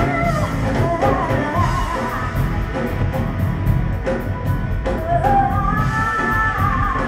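A woman singing a pop-rock song with a live band of drums, electric guitar and keyboard. Her voice carries a phrase through the first couple of seconds and comes back in with a long held line about five seconds in, over a steady drum beat.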